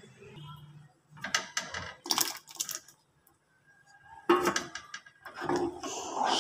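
A steel ladle clinking and scraping against a steel pot as milk is stirred, in two bursts of quick clicks and rattles with a short quiet pause between them.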